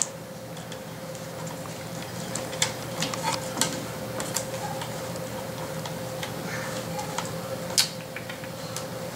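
Scattered small clicks and taps from laptop parts being handled during a screen replacement, over a faint steady hum.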